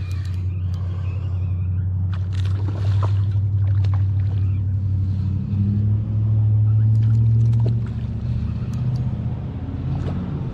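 Low, steady rumble of a spinning reel being cranked while a hooked fish is played on the rod, with scattered faint clicks.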